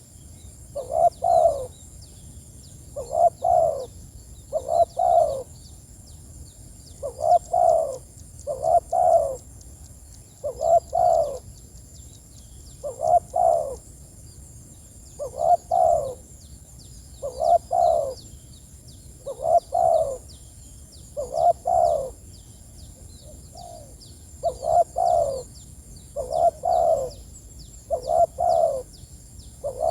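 Spotted dove (tekukur) giving its calling coo: a two- or three-note phrase repeated steadily about every two seconds. It is the call used to draw in or challenge a rival dove.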